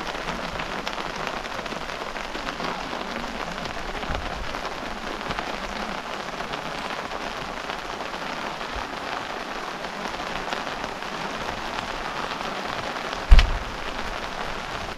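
Steady rain falling on a camping tarp overhead: an even hiss made of many small drop taps. A single short, loud thump comes near the end.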